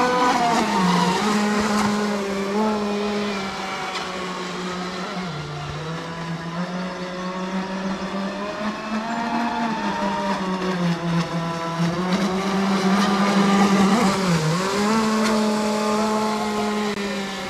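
Electric propeller motors of a small remote-controlled aircraft humming steadily, the pitch rising and falling with throttle, with a quick dip and recovery about three-quarters of the way through.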